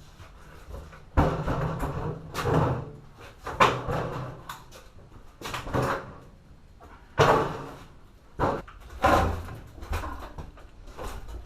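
A series of sharp metal clanks and knocks, about half a dozen loud ones at irregular intervals, each with a short rattle after it: tools and metal pipe fittings being handled during water heater work.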